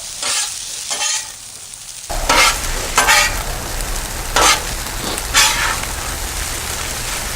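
Fried rice with peas, onion and carrot sizzling on a Blackstone flat-top steel griddle, with metal spatulas scraping and turning it in about six separate strokes. The sizzle grows louder about two seconds in.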